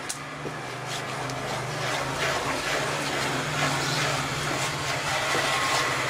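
Wooden spatula stirring thick cashew paste and melted sugar in a granite-coated pan: repeated soft scraping, squelching strokes. A steady low hum runs underneath.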